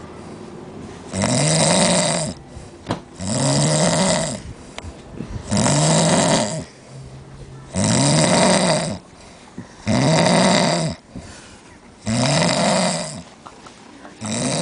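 Loud snoring: six long snores, about one every two seconds, each rising and falling in pitch, with quieter breathing gaps between them.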